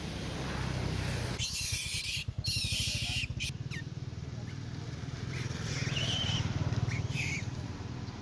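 Two short high squeaks from a monkey, the first rising and falling, over a steady low hum, with a burst of hissing rustle about a second and a half in.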